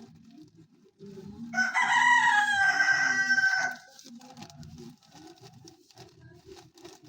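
A rooster crows once: a single loud crow lasting about two seconds, starting about a second and a half in.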